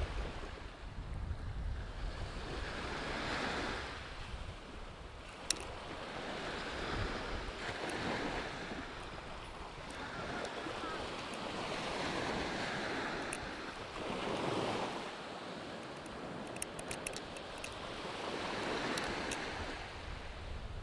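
Small waves breaking and washing up a sandy beach, each wash swelling and fading every few seconds, with wind rumbling on the microphone near the start. A single sharp click about five and a half seconds in.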